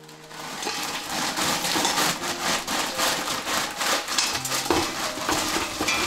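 Frozen vegetable scraps poured from a plastic bag into an empty stock pot. It makes a continuous dense rattle of many small hard pieces striking the pot and one another.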